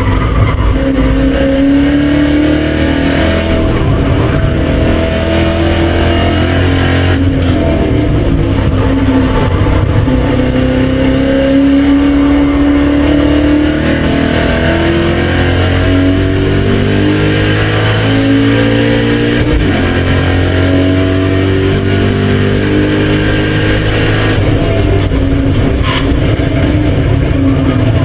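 BMW M5 E39's 4.9-litre V8 running hard at full throttle on track, its pitch repeatedly climbing and dropping back as it changes gear.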